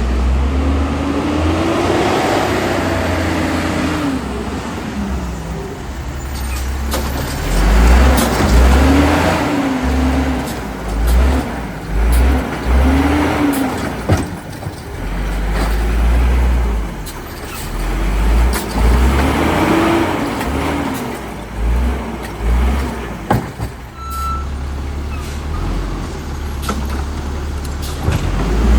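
Autocar WX refuse truck's engine revving up and falling back again and again as the truck accelerates hard and slows between pickups, with hissing air brakes and a few sharp knocks in between.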